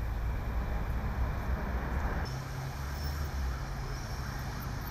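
City road traffic noise: a steady rumble of cars driving past.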